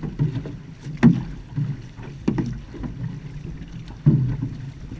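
Outrigger canoe paddling: paddle blades strike and pull through the water in a regular stroke rhythm, about every second and a half, over a steady rush of water and wind.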